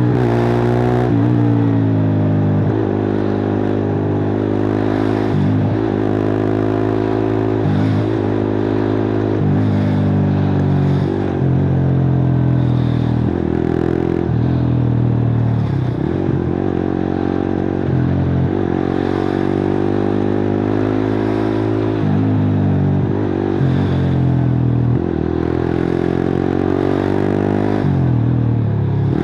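Suzuki GSX-R150's single-cylinder engine running through a cut-open exhaust while ridden. The pitch falls at the start, then climbs slowly again and again under throttle, broken by frequent short dips.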